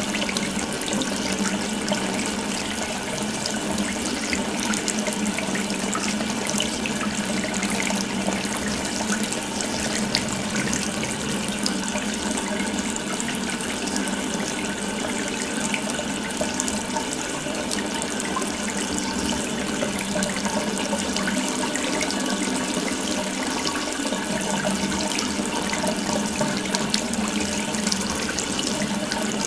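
Water running steadily from an open tap into a sink, a continuous splashing stream.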